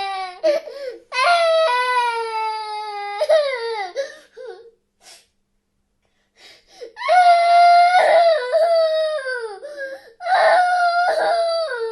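SpongeBob SquarePants's cartoon baby-crying sound effect: long, high wailing sobs, each falling in pitch, with a pause of about two seconds near the middle.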